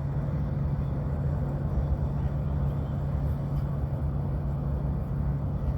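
Steady low mechanical hum with a constant low tone and a rumble beneath it, unchanging throughout.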